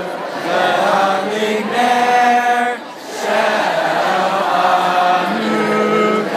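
A large crowd singing a chant together in unison, in long held phrases with a short break about three seconds in.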